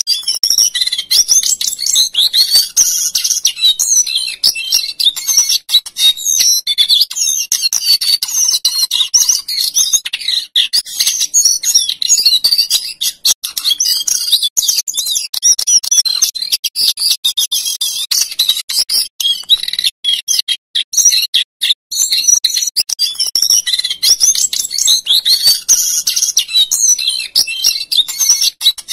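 Male jongkangan coklat (cingcoang coklat), a caged songbird, singing a long rolling song of fast, high warbled and whistled notes, with brief breaks about a third and two thirds of the way through.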